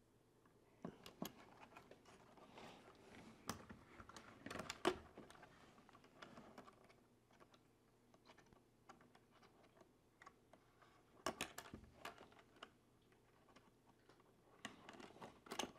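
Faint clicks, taps and rustling of a small plastic RC truck body being handled and turned over with a screwdriver while light-kit parts are fitted. The clicks come in clusters, with a busier stretch during the first few seconds and another short cluster a little past the middle.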